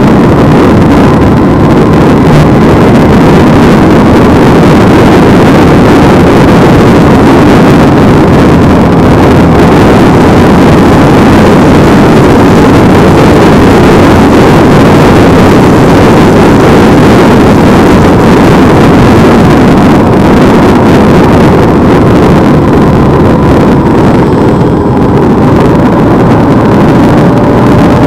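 Loud, steady wind rush over the microphone of a camera on a moving motorcycle, mixed with the motorcycle's engine running at road speed.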